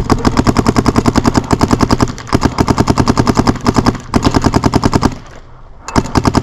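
Paintball marker firing rapid strings of shots at an even rate of about a dozen a second. The strings break briefly about two and four seconds in, then pause for nearly a second before the firing resumes near the end.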